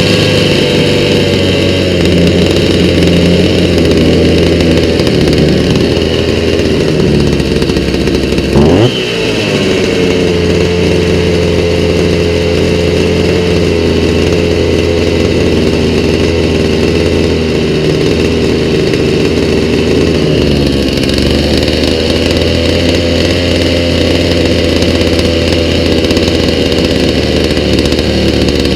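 Stihl MS290 chainsaw's two-stroke engine running steadily at idle on a newly fitted aftermarket carburetor. It briefly revs up and drops back once, about nine seconds in.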